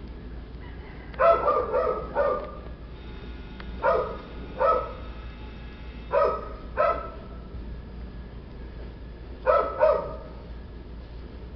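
A dog barking off and on in short sharp barks, two or three at a time, with a few seconds' pause between the groups.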